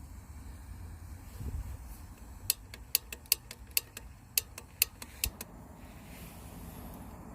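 A run of about eight sharp, evenly spaced clicks, roughly two a second, lasting about three seconds.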